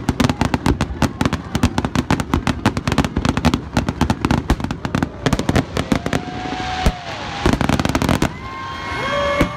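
Fireworks display: a rapid barrage of firework shells bursting, many sharp cracks and bangs a second. The barrage thins after about five seconds to a few heavy bangs, then gives way to a crackling hiss.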